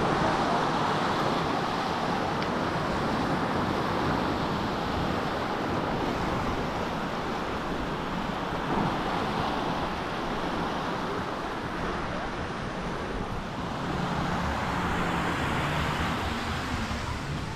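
Surf washing onto a sandy beach: a steady rush of noise that swells and fades, louder near the start and again near the end, with wind rumbling on the microphone.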